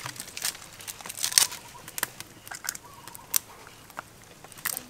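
Sharp, irregular plastic clicks and crackles as the caps and seals of plastic cooking-oil bottles are twisted and peeled open by hand.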